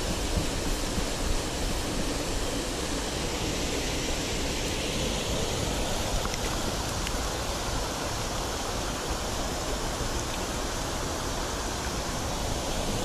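Water spilling over a small weir and running through a shallow mountain stream: a steady, even rush of falling and flowing water.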